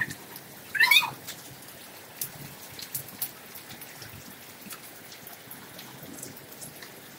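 Rain falling steadily, with scattered sharp ticks of drops landing, and a brief high-pitched call about a second in.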